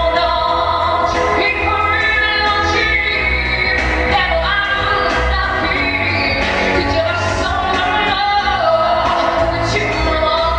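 A woman singing long held, sliding notes into a microphone over instrumental accompaniment with a pulsing bass.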